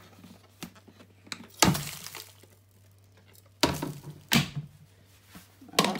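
Plastic clicks and knocks of a Vax Air Cordless vacuum's dust bin being released with its button and handled: a few light clicks, then three sharp knocks, the first about one and a half seconds in and two more close together about two seconds later.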